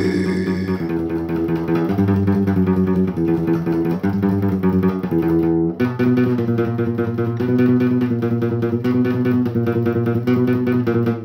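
Guitar playing a riff of repeated chords in a steady rhythm, switching to a new chord pattern about six seconds in and cutting off abruptly at the very end.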